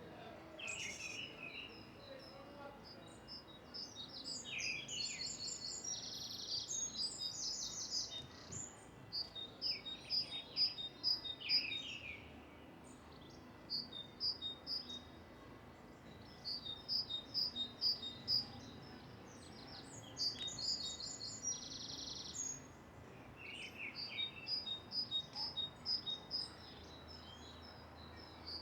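Songbirds chirping and singing in a park, in repeated bouts of quick high notes, over a faint steady background of outdoor noise.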